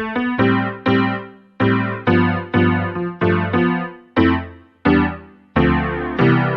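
Casio CTK-4200 arranger keyboard playing a piano-type tone: about a dozen chords struck one after another, each dying away, with a longer held chord near the end.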